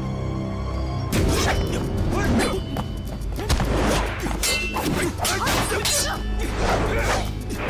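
Fight-scene sound effects: a quick run of whooshes and hard hits, starting about a second in, over dramatic score music.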